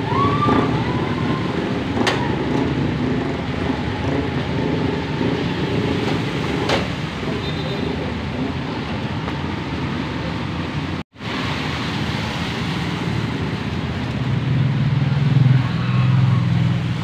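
Motor vehicle engines running steadily in street traffic, a low drone that swells near the end. The sound cuts out for a split second about eleven seconds in.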